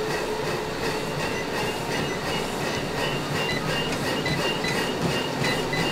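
Several treadmills running at a fast pace: a steady mechanical whir of motors and belts with the quick rhythm of runners' footfalls on the decks.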